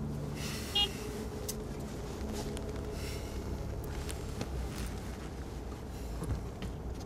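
Steady low road and engine rumble inside a moving car's cabin, with a brief horn toot about a second in.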